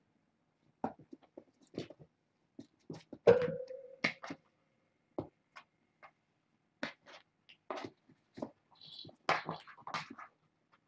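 Scattered rustles and light taps from kittens playing and being handled on a play mat, with one louder knock about three seconds in that rings briefly.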